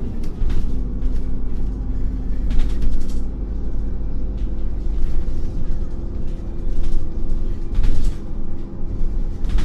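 Irisbus Cityclass city bus's natural-gas Iveco Cursor 8 engine idling steadily with the bus standing still, a low rumble with a steady hum. A few short hisses come and go over it.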